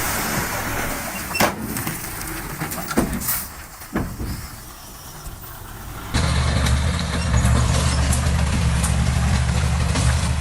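Hiss with a few sharp knocks, then, about six seconds in, an abrupt change to a heavy diesel engine running steadily with a deep hum.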